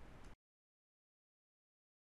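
Near silence: faint room tone that cuts off about a third of a second in, leaving dead digital silence.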